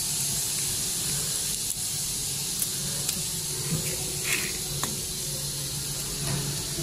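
Hot oil hissing steadily in a stainless batch snack fryer as corn kernels sizzle after about two minutes of frying, over a low steady machine hum, with a few light clicks as kernels are tipped into a metal basin.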